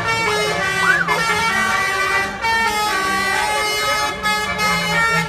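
A bus's Basuri telolet horn, a multi-note electric air horn, playing a sholawat melody as a run of held notes that change pitch every so often, with a brief break about two and a half seconds in.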